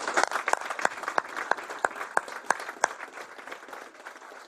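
Audience applauding, with a few individual claps standing out, thinning and fading toward the end.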